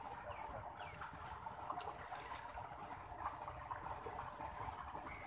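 Irrigation water running along an earthen furrow into a vegetable bed, a steady gentle flow, with a few faint knocks as a hoe works the wet soil.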